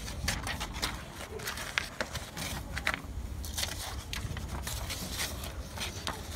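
Sheets of printer paper being handled, rustling and crinkling in a run of short, irregular crackles.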